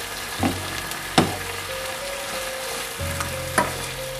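Grouper fillets and diced cherry tomatoes sizzling in oil in a nonstick frying pan while a wooden spatula pushes the tomatoes over the fish. There are three sharp knocks of the spatula against the pan, the loudest about a second in.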